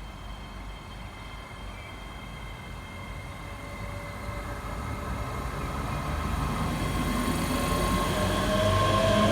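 Electric train approaching, growing steadily louder, with a steady whine from its motors and rail noise building toward the end.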